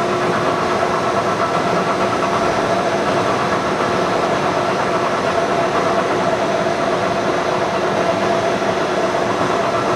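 Leblond NK engine lathe running under power: a steady mechanical hum with a steady gear whine.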